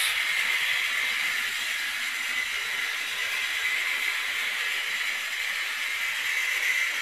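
OO gauge prairie tank model locomotive running on the layout, its electric motor making a steady, noisy high whir while it hauls a heavy four-coach train.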